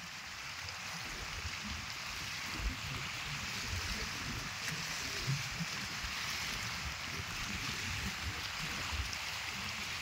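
Small wind-driven waves washing and lapping against a rocky reservoir shore, a steady watery hiss, with wind buffeting the microphone in low, uneven rumbles.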